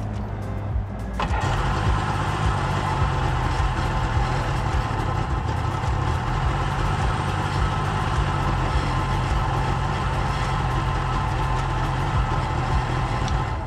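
A Sea-Doo jet ski's two-stroke engine running steadily on the trailer, out of the water with no cooling water. It gets louder about a second in.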